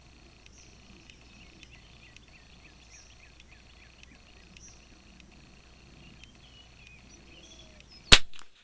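A single shot from a Kimber 82G .22 rimfire target rifle, one sharp crack about eight seconds in. Before it, only faint outdoor background with small repeating chirps.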